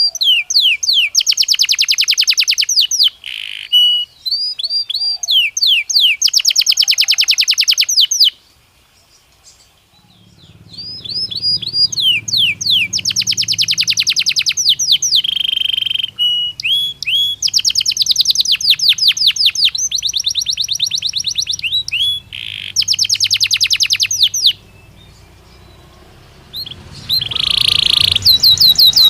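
Belgian canary singing in fast trills of rapidly repeated notes, in phrases a few seconds long with two pauses of about two seconds. A faint low hum sits behind the song from about ten seconds in.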